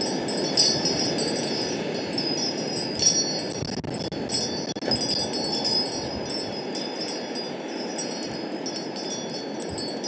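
Wind chimes tinkling irregularly in a strong wind, with bright high notes that come and go, over a steady rush of wind.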